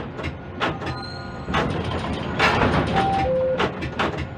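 Quay crane machinery running as the spreader lowers a container into a ship's hold: a steady low rumble with frequent sharp clicks and knocks, a rush of noise about two seconds in, and two short beeps of different pitch about three seconds in.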